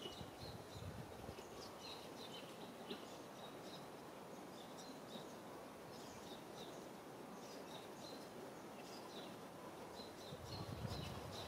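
Faint outdoor background hiss with many short, high chirps scattered throughout, and a few low thumps near the end.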